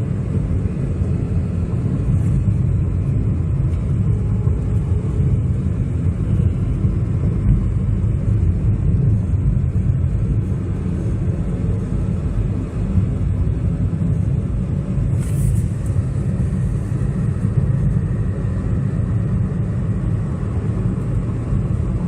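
Steady low rumble of a moving vehicle on the road, with one short click about fifteen seconds in.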